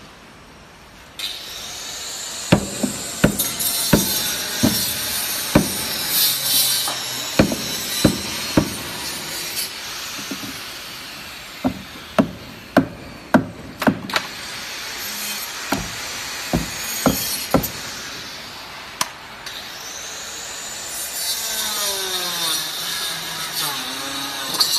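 Hammer blows on timber: a long series of sharp wooden knocks, irregular at about one to two a second, as the planks of a wooden mould for an induction furnace's castable lining are driven tight. The knocks stop about three quarters of the way through, leaving a steady high hiss.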